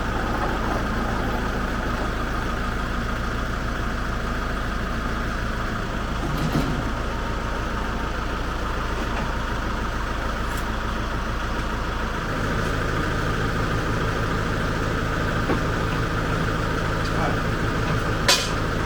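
Ford 1920 compact tractor's three-cylinder diesel engine running steadily. The engine note changes about twelve seconds in, and there are two brief knocks, one near the middle and one near the end.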